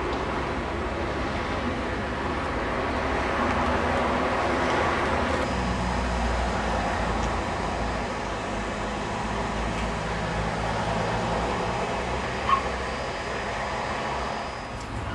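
Steady rumble and hiss from trains standing at a station platform, the low rumble growing stronger about five seconds in. One brief, sharp sound stands out about twelve seconds in.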